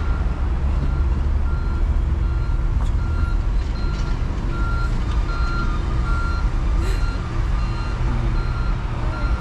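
Vehicle backup alarm beeping steadily, about two beeps a second, over the constant low rumble of engines and traffic at a road construction site.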